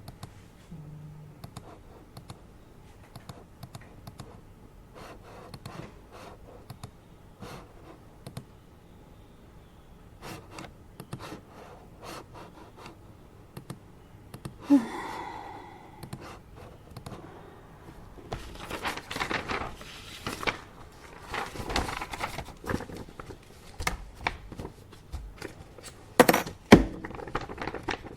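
Office desk work: scattered keyboard key clicks for the first half, a brief squeak about halfway, then paper rustling and scratching with two sharp thunks near the end.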